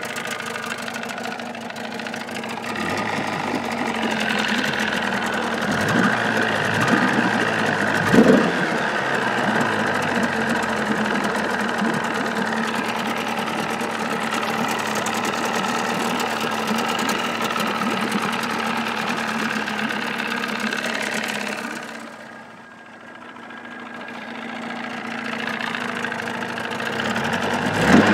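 A 1979 Evinrude 35 hp two-cylinder two-stroke outboard idling steadily with sound-deadening mat lining its cowl. There is a short knock about eight seconds in, and the sound turns muffled and quieter for a couple of seconds near the end before it comes back up.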